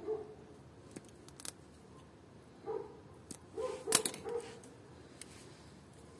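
Short, high whining calls from an animal: a string of them right at the start, then again about three and four seconds in. A few sharp clicks fall between them, the loudest about four seconds in.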